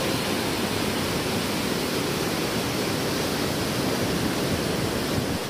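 Naga Falls' mountain torrent rushing steadily over boulders, an even hiss of falling water.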